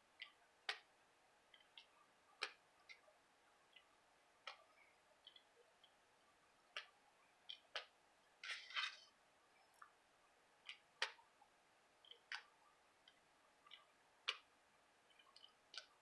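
Faint, irregular clicks as a fingertip flicks the tip of a dual-tip ink marker over and over to splatter ink, with a brief rustle about eight and a half seconds in.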